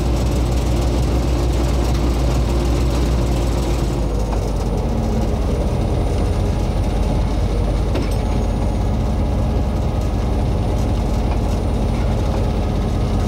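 Diesel engine of the R123 diesel-electric locomotive running steadily in a low drone, its note changing about four seconds in.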